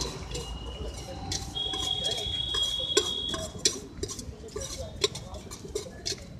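Scattered light clinks and taps of metal utensils and bowls at a street-food stall over a low hum of street noise, with a steady high tone held for about a second and a half between about one and a half and three seconds in.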